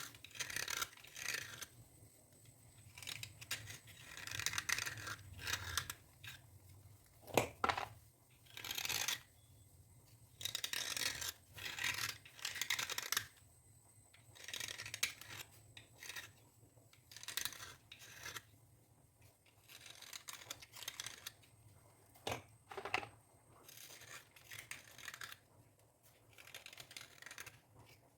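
Dry scalp being scraped and scratched for dandruff removal: irregular raspy strokes, each half a second to two seconds long, with short pauses between.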